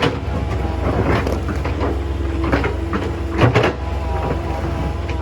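Hydraulic excavator's diesel engine running steadily under load, with a whine that shifts in pitch as the hydraulics work and sharp knocks of stones striking the steel bucket several times.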